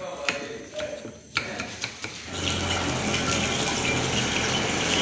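A few sharp chops of a knife through green bell pepper onto a wooden board. About two seconds in, they give way to the steady rushing noise of a high gas flame under a wok of heating oil, with a low hum.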